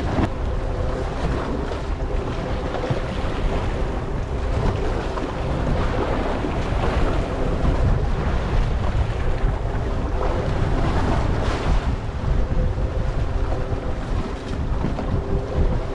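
Wind buffeting the microphone over waves washing against a small fishing boat's hull at sea, with a faint steady hum underneath.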